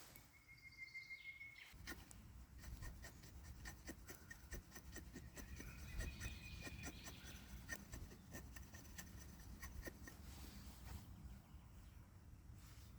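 Faint, irregular clicking and scraping with a low rumble beneath, alongside forest ambience. A bird whistles one steady note near the start.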